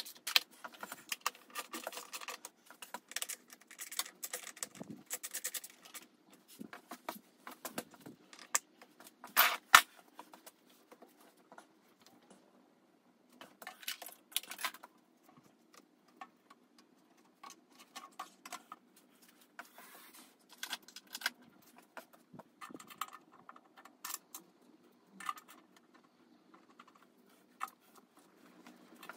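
Scattered metallic clicks, clinks and rattles of hand tools and parts being handled, coming in irregular clusters with pauses, the loudest clatter about ten seconds in.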